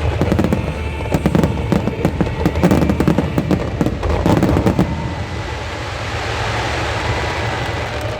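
Fireworks going off in a dense run of rapid bangs and crackles, easing into a steadier hiss and rumble after about five seconds.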